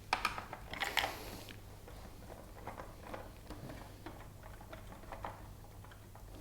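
Plastic air-conditioner parts being handled and unclipped: a cluster of sharp clicks and rattles in the first second and a half, then softer scattered clicks and taps.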